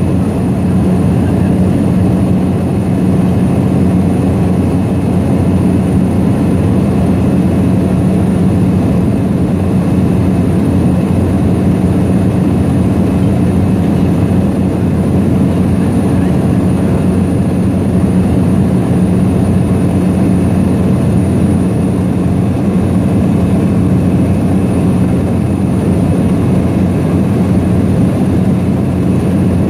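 Seaplane's propeller engine droning steadily in cruise, heard from inside the cabin as a loud, even low hum.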